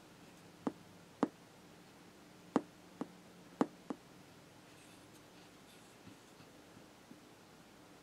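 A single-valve super-regenerative receiver with a 12AF6 space charge tube and a 33K resistor being adjusted by hand: a faint steady hum with about six sharp clicks in the first four seconds, then a few fainter ticks. The circuit gives little output in this setup.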